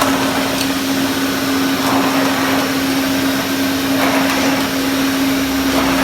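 Hoover Constellation 843 canister vacuum cleaner running steadily: a constant motor hum under an even rush of air.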